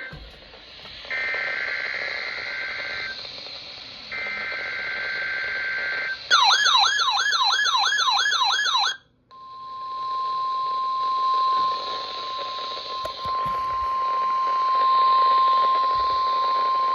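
NOAA Weather Radio alert tones for a Required Weekly Test. First come two bursts of buzzy two-tone SAME data header, then about three seconds of a loud warbling tone sweeping rapidly up and down. After a brief dropout comes the steady 1050 Hz weather alarm tone, held for about seven seconds.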